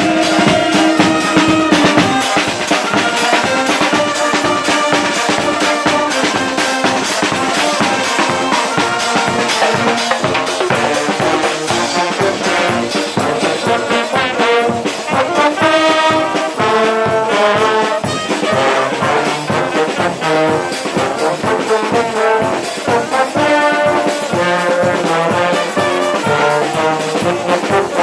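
Carnival brass band playing a tune, trombones and trumpets over a steady drum beat.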